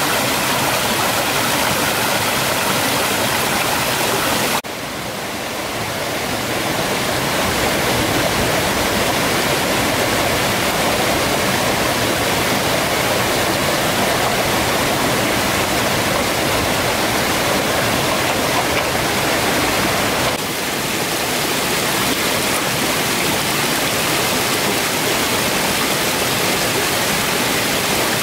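Stream water rushing over rocks in small cascades, a steady loud rush. The level drops suddenly twice, about four and a half seconds in and again about twenty seconds in, then builds back up.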